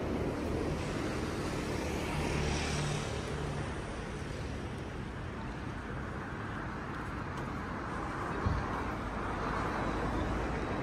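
Road traffic: a car passes about two to three seconds in over steady traffic noise, and another vehicle sound builds in the second half.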